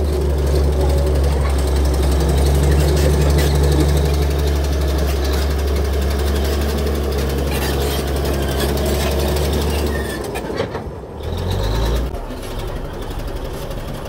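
Komatsu D65A bulldozer's diesel engine running as the machine drives on its steel tracks, with clattering from the track links. About ten seconds in the engine note drops away, and a quieter, lower running sound follows.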